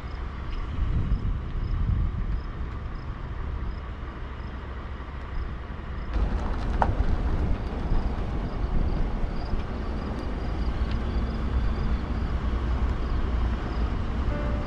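Engine and road noise of a moving vehicle heard from inside the cabin, a steady low rumble that gets louder about six seconds in.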